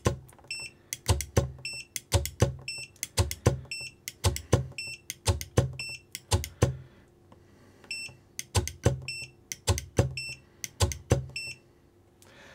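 9Imod 71 kg brushless servo being driven again and again against a digital torque meter's arm: a run of sharp knocks, often in quick pairs, with a short high tone between many of them. There is a brief pause about seven seconds in.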